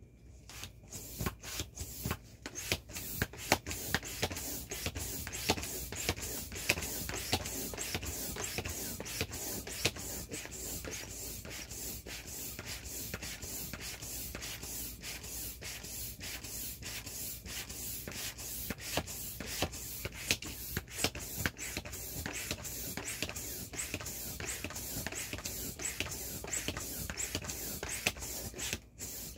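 Air pump running steadily, blowing air through a hose into a vinyl inflatable ATV, with constant crinkling and crackling of the vinyl as it unfolds and fills.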